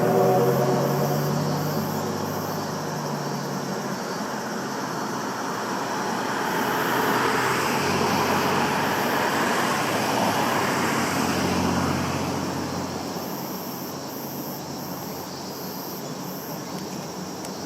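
Steam-hauled passenger train rolling past. The rumble of wheels and coaches swells to a peak about eight to eleven seconds in, then fades away. Insects chirp in groups of short, very high pulses.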